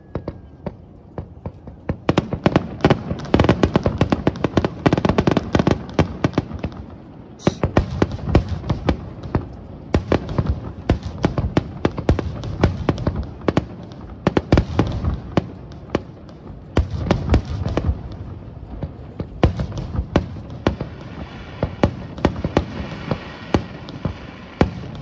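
Fireworks display going off in a rapid barrage of sharp bangs and crackles, sparse for the first couple of seconds and then packed close together.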